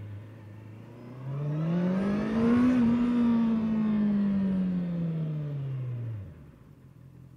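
Honda CBR650R's inline-four engine running steadily, then speeding up over about a second and a half and winding down slowly back to a steady low running speed.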